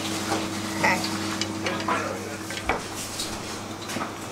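Hot cooking oil sizzling, with occasional light clinks of metal utensils and dishes over a steady hum.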